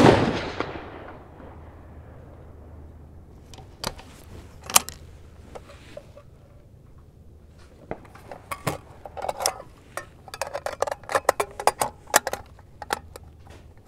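A 6mm Creedmoor bolt-action rifle fires one shot at the start, the report trailing off over about a second. A couple of sharp metallic clicks from the bolt follow about four seconds in, then from about eight seconds on a run of small clicks and clinks as cartridges and brass are handled on the bench.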